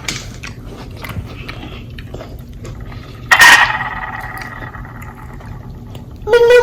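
Close-miked mukbang eating: wet chewing and mouth noises, most likely while eating a fried chicken sandwich dipped in Samyang 2X spicy sauce. About three seconds in comes a sudden loud high squeal that fades slowly. Near the end comes a shorter pitched whine that drops in pitch.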